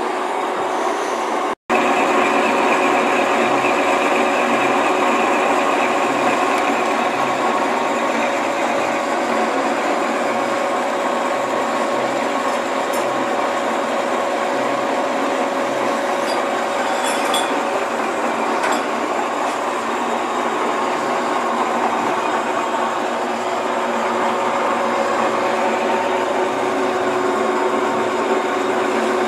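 TV-4 "Shkolnik" school lathe running steadily, a continuous machine hum with several held whining tones. The sound drops out for a split second just after a second in.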